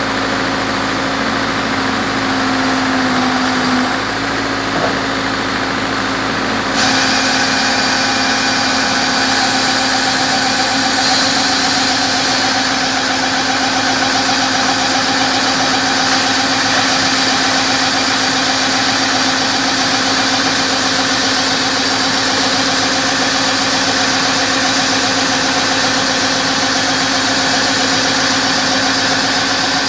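Water-well drilling rig's engine running steadily. About seven seconds in it gets louder and fuller, then holds at that level.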